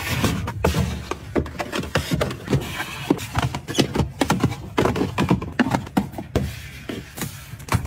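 Containers and packaging being handled and set down: a rapid run of small clicks, taps and knocks, several a second, with rustling between them.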